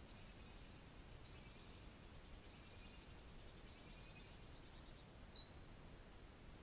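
Faint forest ambience with quiet pulsed trills repeating high up. A single short, falling bird chirp sounds about five seconds in, and a thin, high steady tone begins about four seconds in.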